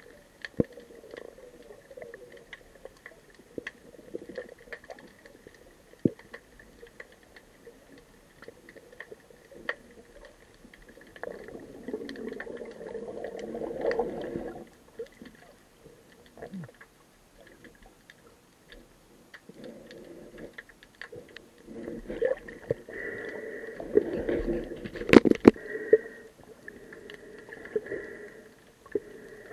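Underwater sound through a camera housing: scattered clicks and crackles, with muffled rushing water welling up twice, a third of the way in and again about three quarters in, and one sharp knock near the end.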